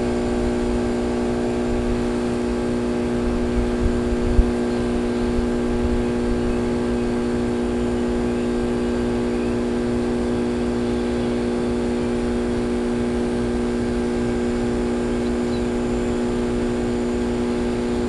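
Steady mechanical hum, a low pitched drone that holds without change, with one brief knock about four seconds in.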